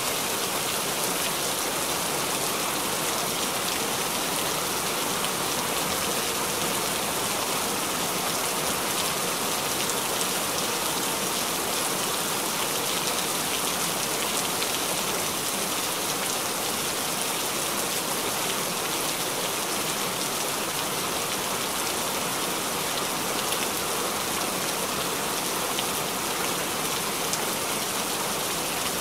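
Heavy rain falling steadily: an even, unbroken downpour that neither builds nor eases.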